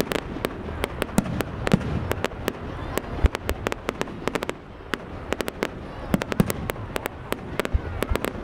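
Fireworks display going off: a rapid, irregular run of sharp bangs and crackles, several a second, over a low rumble of bursts, with one louder bang about three seconds in.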